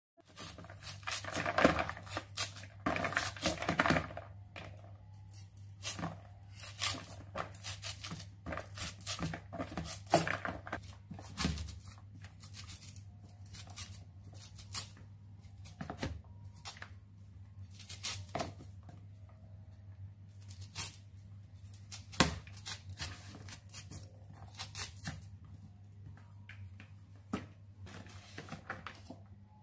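A knife slicing the kernels off a cob of sweet corn over a plastic bowl: a long run of short, irregular scraping strokes. A steady low hum runs underneath.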